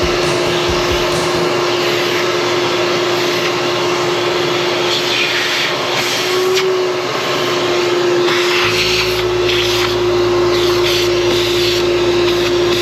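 Vacuum cleaner running steadily with a constant motor whine, cleaning up fiberglass dust from freshly drilled holes. A low hum joins about two-thirds of the way through.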